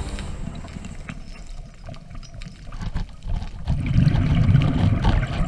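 Underwater rumble of water and bubbles, swelling loudest about four seconds in, with a few faint clicks.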